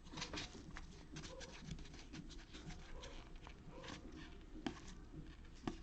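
Faint crinkling and scattered clicks of foil trading-card packs being opened and cards being handled.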